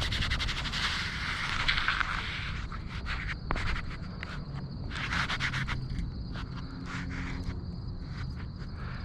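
Shoes scraping and scuffing on a sloped concrete embankment while sliding and stepping down it. A quick run of scrapes and steps, busiest in the first couple of seconds and again about halfway.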